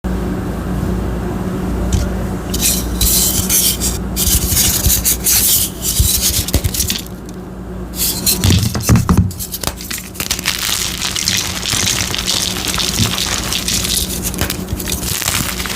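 Blocks of gym chalk being crushed, a dense crunchy crackling in irregular bursts as the chalk breaks down into soft powder, with a heavier low crunch about nine seconds in. A steady low hum runs underneath.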